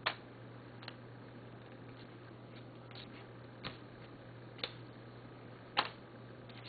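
Trading cards being handled and sorted by hand: a handful of scattered soft clicks and taps over a steady low hum.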